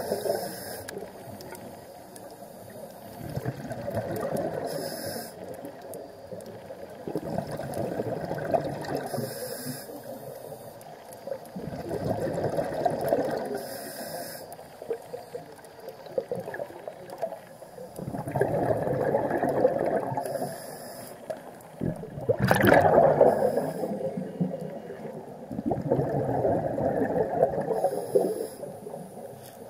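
Scuba diver breathing through a demand regulator underwater: a short hiss on each inhale, then a burst of bubbling on each exhale, repeating roughly every four to six seconds. One exhale about two-thirds of the way through is the loudest.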